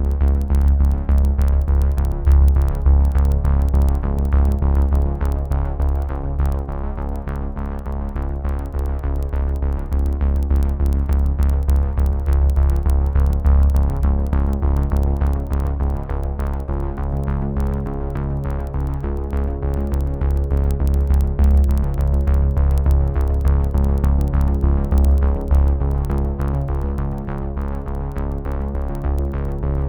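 Electronic background music with a drum-machine beat, synthesizer and a heavy bass line.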